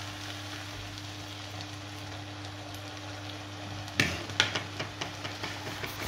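Spaghetti in starchy pasta water bubbling and sizzling in a nonstick frying pan as the water boils down, with a steady low hum under it. About four seconds in comes a sharp clack, then a run of lighter knocks as a plastic spatula works in the pan.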